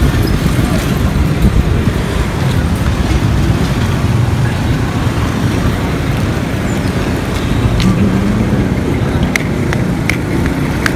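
Roadside traffic noise, with a motorcycle tricycle (motorbike with sidecar) passing at the start over a steady low rumble.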